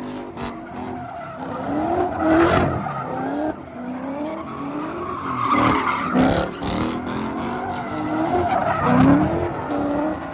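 A car's engine revving up again and again, its pitch climbing with each push, over the hiss of spinning tyres squealing on the pavement as the car does donuts.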